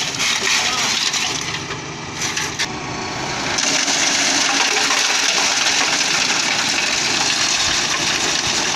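Concrete mixer truck discharging concrete: a loud, gritty rushing and crackling of wet concrete and aggregate, which grows louder and steadier about three and a half seconds in, over the truck's diesel engine.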